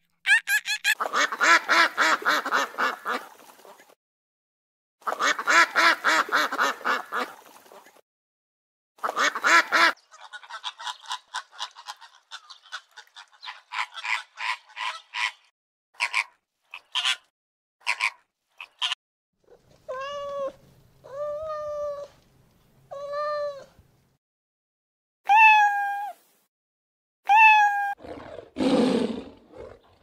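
A run of animal calls: three bouts of fast chattering trills, then a quick series of sharp chirps, then flamingos honking, three honks and then two more.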